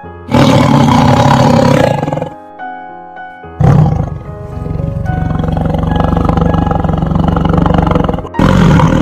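A big cat roaring: a short roar, a few piano notes, then a long rough roar lasting several seconds, with another roar starting near the end.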